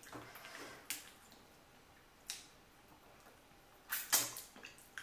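Eating boiled lobster by hand: a few soft clicks and smacks of fingers picking meat from the shell and mouth sounds, with a louder cluster about four seconds in as food goes to the mouth.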